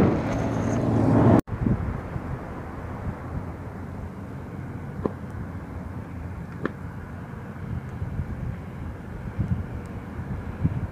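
Strong wind buffeting the microphone, loud for about the first second and a half, then cutting off abruptly. After that, a lower, steady wind rumble with a couple of faint ticks.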